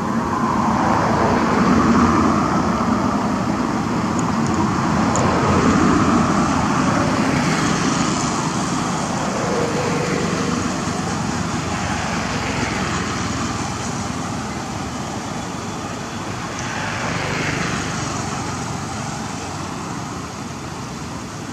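Road traffic noise: vehicles passing, the sound swelling and fading several times.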